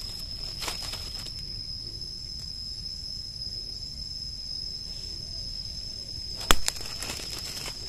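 An insect keeps up steady, high-pitched singing in the forest, with faint rustles of dry leaf litter and one sharp snap about six and a half seconds in as a hand reaches in to pick a mushroom.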